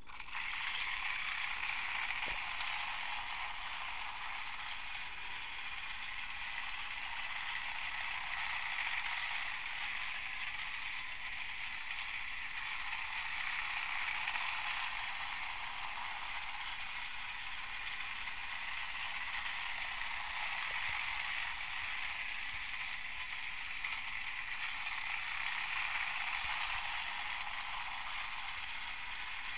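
Trackmaster Dennis toy engine's small electric motor and plastic gears whirring steadily as it pulls its cars round the plastic track, starting up just after it is switched on. The whir swells and fades every ten seconds or so as the train circles nearer and farther.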